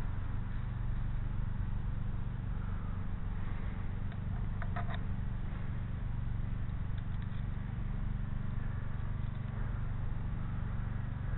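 A steady low hum, with a few faint clicks about halfway through as the aluminum launcher parts are handled and fastened with wing nuts.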